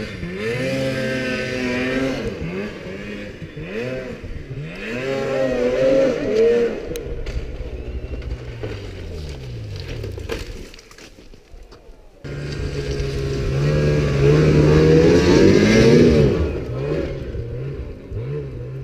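Snowmobile engines revving hard and unevenly as sleds climb a steep snowy hill, the pitch rising and falling over and over. The engine sound fades for a moment about two-thirds of the way through. Then it comes back suddenly loud and climbs to a high rev before easing off near the end.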